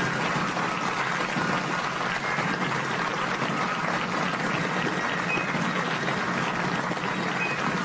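Studio audience applauding steadily at the end of a radio sitcom recording.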